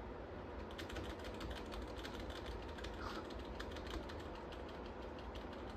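Computer keyboard key tapped over and over, a fast irregular run of clicks, over a faint steady hum. The key is being pressed during boot to try to enter the BIOS setup (F2).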